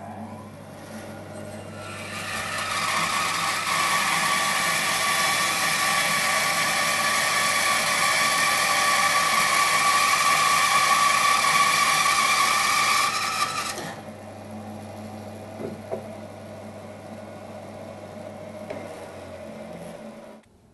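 Record Power BS400 bandsaw with a 2 hp motor running, its 3/8-inch 6 TPI blade cutting a thin veneer off a 4-inch block of maple. The cutting starts about two seconds in, loud with a steady whine, and stops around fourteen seconds, after which the saw runs on with a quieter hum.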